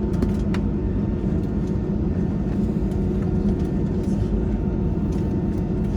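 Cabin noise of an Airbus A320-216: the steady hum of its CFM56 engines and cabin air, holding a constant pitch, with a couple of faint clicks about half a second in.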